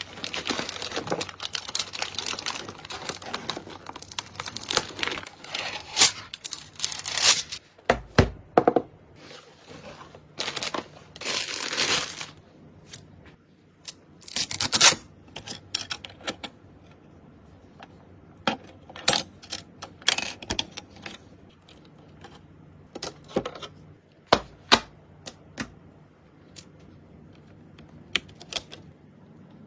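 Computer parts and their packaging being handled during a PC build: rustling and tearing for the first several seconds, then scattered sharp clicks and taps of plastic and metal parts.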